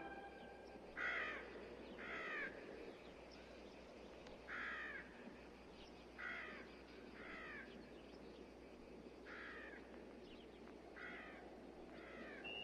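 Crows cawing: about eight single harsh caws, a second or two apart and irregularly spaced, over a faint steady hiss.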